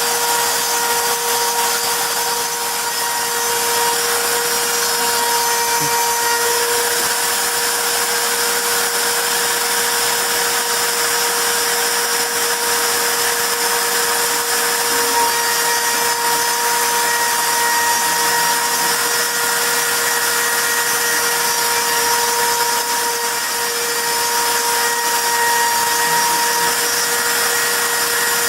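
CNC router spindle running steadily with a high-pitched whine, its bit engraving a wooden plaque.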